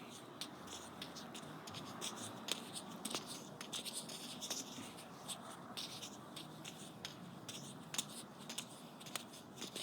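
Faint scratchy rustling with scattered soft clicks from juggling balls being caught and handled.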